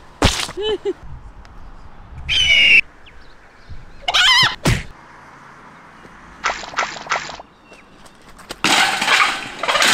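A string of short comedy sound effects laid over a physical sketch: a click and a brief wobbling boing, squeaky chirp-like whistles, three quick thuds, then a longer noisy crash-like burst near the end.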